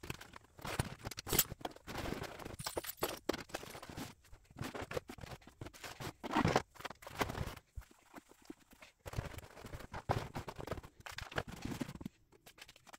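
Fabric storage bins being pushed, slid and adjusted in the cubbies of a cube shelf unit: irregular rustling and scraping of fabric against the shelf, with a few sharp knocks.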